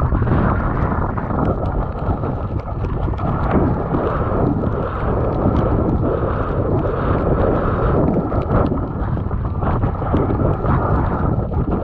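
Wind buffeting the action camera's microphone while riding an e-bike through snow: a steady, deep rushing, with scattered small knocks and clicks from the ride.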